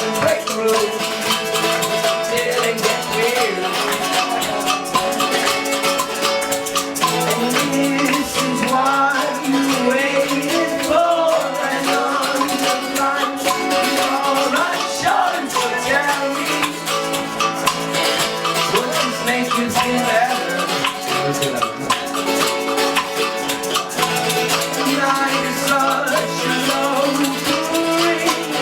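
Live band music: guitar and a shaker keeping a steady rhythm under a wavering melody line.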